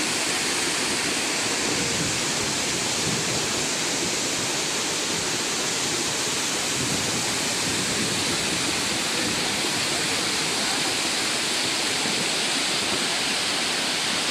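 Huayco, a mud-laden flash flood, rushing across a wide plain: a steady, unbroken noise of moving water.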